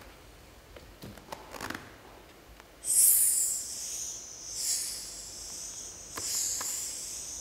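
A woman hissing loudly in long breaths through her teeth, three long hisses starting suddenly about three seconds in. Before that there are a few faint knocks, her heels and hands on the stage floor.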